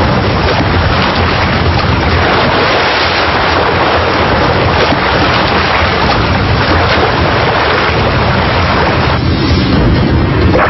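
Churning, rushing seawater as a wave raised by killer whales surges over a small ice floe to wash a seal off it. About nine seconds in the hiss falls away and a duller rumble remains.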